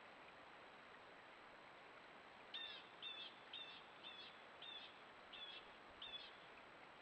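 A bird calling: a series of seven short, high piping notes, evenly spaced about half a second apart, starting a few seconds in.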